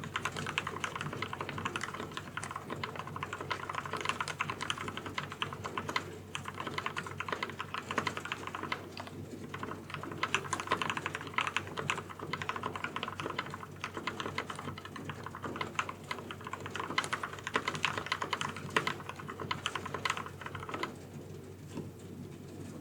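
Typing on a KBD75v2 mechanical keyboard with lubed Gateron Yellow linear switches: a dense, continuous run of keystrokes with a few brief pauses, stopping near the end.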